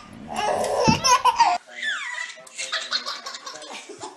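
Babies laughing: a baby's hearty belly laugh in quick bursts for about a second and a half, then, after a sudden change in sound, another baby's high, squealing laughter.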